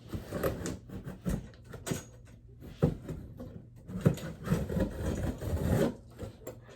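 Cardboard box and packaging being opened and handled: irregular scraping, rubbing and rustling with scattered knocks, busiest a few seconds in.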